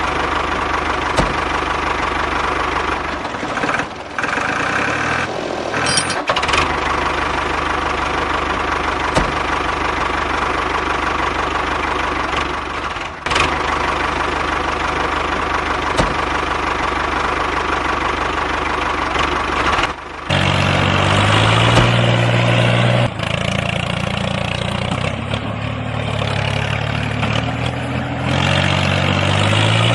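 Tractor engine running steadily, with a deeper, louder note from about twenty seconds in.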